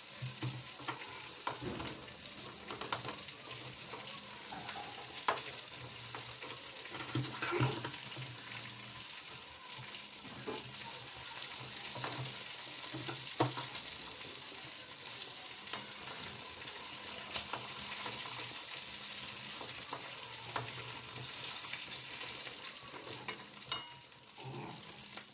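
Hot oil sizzling steadily in a cooking pan, with scattered sharp taps of a utensil against the pan.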